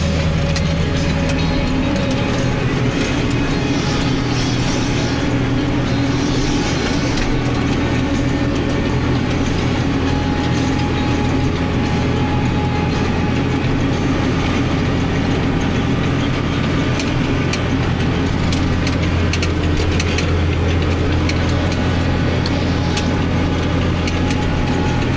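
Massey Ferguson 8280 Xtra tractor's six-cylinder diesel engine running steadily under load while pulling a seedbed cultivator through the soil, heard from inside the cab, with constant small rattles and clicks from the cab and machinery.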